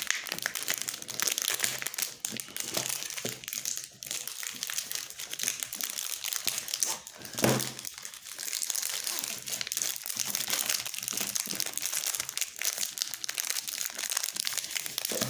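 Plastic chocolate bar wrapper crinkling continuously as it is handled and tugged at, with a louder crackle about seven seconds in. The wrapper is resisting being opened.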